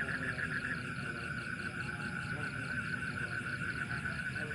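Night chorus of frogs and insects: a steady, rapidly pulsing trill, with a low rumble underneath.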